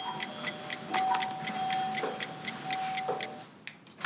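Ticking clock-like music cue: even ticks about four a second under a held tone, both stopping about three seconds in.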